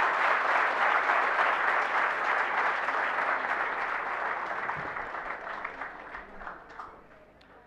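Audience applauding, the clapping gradually thinning out and fading away over the last couple of seconds.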